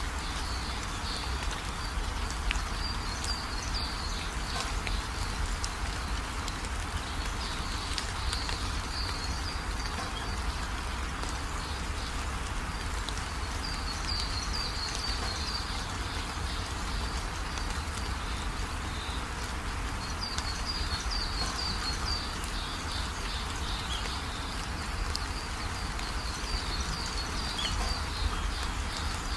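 Steady room noise with a low hum and a hiss, and short spells of high-pitched chirping every few seconds.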